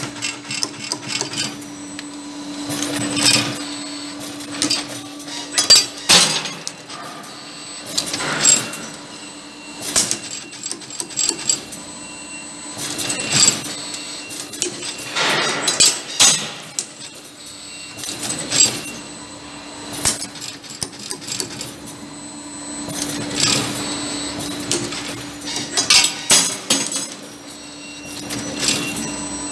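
WAFIOS BM6 CNC wire bending and coiling machine running a production cycle. A steady motor hum runs under repeated metallic clicks, clanks and short whooshing bursts every couple of seconds as it bends wire parts.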